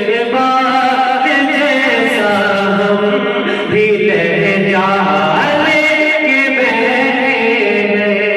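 A man singing an Urdu devotional kalam (naat) in long, held, wavering notes that glide between pitches.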